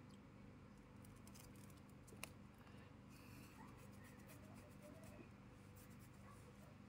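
Near silence: faint scattered ticks and scratches over a low steady hum, with one sharper click a little over two seconds in.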